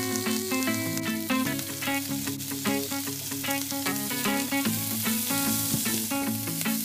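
Food frying in a pan with a steady sizzle, under background music of short plucked notes.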